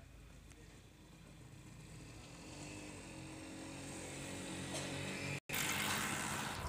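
An engine running with a steady low hum that grows gradually louder. It cuts out for an instant about five seconds in, then comes back louder with more hiss.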